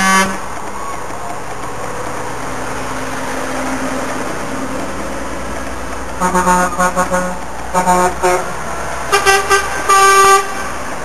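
Truck horns sounding in groups of short toots over steady engine and traffic noise, starting about six seconds in, with a last, longer blast from a higher-pitched horn near the end.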